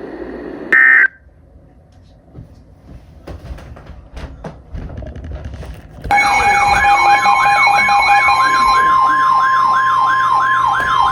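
Emergency alert broadcast tones: a short burst of digital data tones about a second in, then a loud alert signal starting about six seconds in. The alert is a siren tone sweeping up and down two to three times a second over a steady beep.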